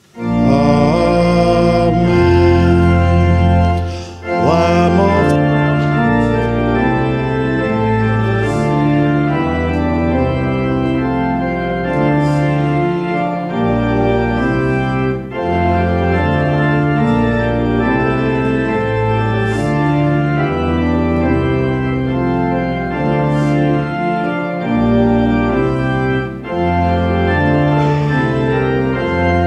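Church organ playing slow sustained chords, with brief breaks between phrases.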